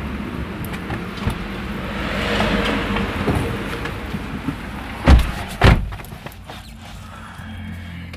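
Car door shut with two heavy thumps about half a second apart, after rustling and handling noise as a person climbs in. Afterwards the sound is quieter and muffled inside the closed cabin.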